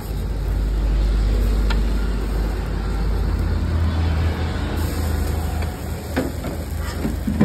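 Low, steady rumble of a motor vehicle's engine on the street. A few short scrapes and taps of a steel spatula on the griddle sound as pancakes are lifted.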